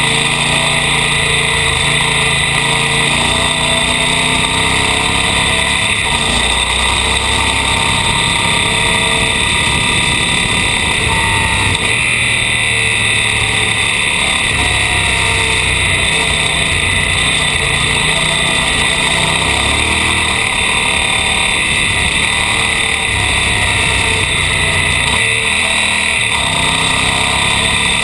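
Off-road motorcycle engine running as the bike rides a gravel road, its note rising and falling with the throttle, under a steady hiss of wind and tyre noise.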